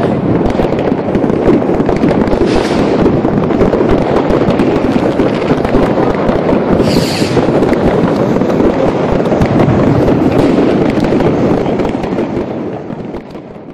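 Dense, continuous crackle and popping of many fireworks and firecrackers going off at once, the New Year's Eve barrage. A high hiss rises out of it about seven seconds in. The sound fades out near the end.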